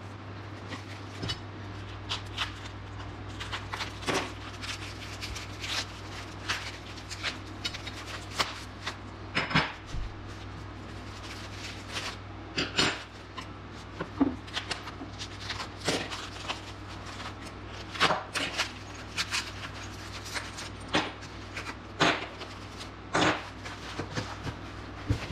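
Metal parts and tools of a reloading press being handled and set down on a stainless steel workbench: irregular clicks and clanks, with packing paper rustling, over a steady low hum.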